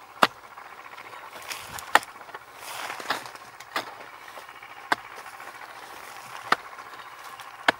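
A long-handled digging tool chopping into dry earth at a burrow entrance: about six sharp strikes, roughly one every second and a half, with soft scraping of loosened soil between them.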